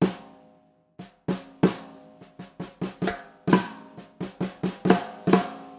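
Snare drum with a coated Remo batter head struck with a wooden stick: one hit, then after a short pause a run of about a dozen and a half irregularly spaced strokes. Each stroke leaves a nice ring made of several tones rather than one distinct pitch, the sign of a snare tuned high enough that the single boomy pitch fades away.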